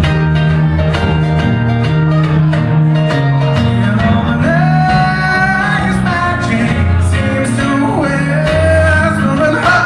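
Small band playing live: strummed acoustic guitar and electric bass under a sustained, sliding lead melody line.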